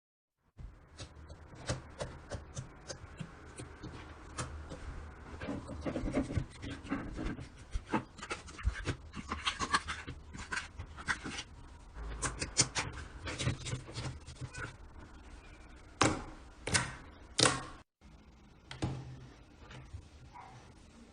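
Slime being squeezed and poked by hand, making irregular sticky clicks and small crackling pops, with three louder snaps near the end.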